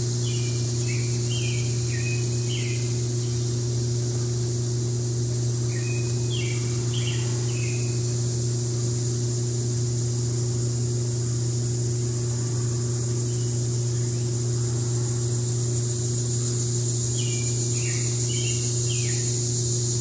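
Summer woodland ambience: a steady high-pitched insect drone, with a songbird singing three short phrases of quick chirping notes, one at the start, one about six seconds in and one near the end. Under it runs a loud, steady low hum.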